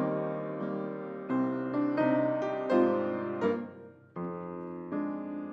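Piano music accompanying a ballet barre exercise: sustained chords that start suddenly, break off briefly about four seconds in, and resume with the next phrase.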